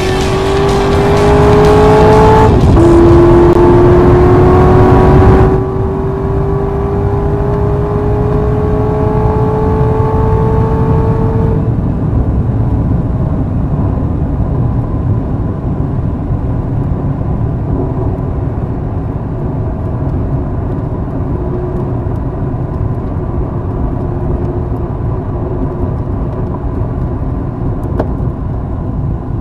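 In-car sound of a Corvette Z06 at full speed: the engine note climbs, drops with a gear change about two and a half seconds in, then climbs steadily again. About twelve seconds in the engine note falls away as the car lifts off and slows, leaving steady wind and tyre roar.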